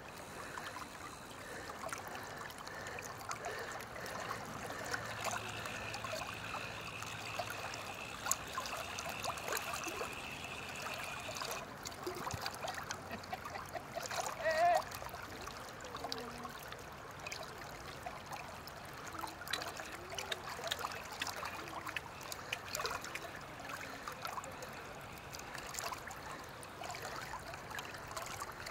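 River water lapping and trickling close to the microphone, with many small splashy ticks. A faint steady high tone runs for several seconds in the first half, and a brief louder note sounds about halfway through.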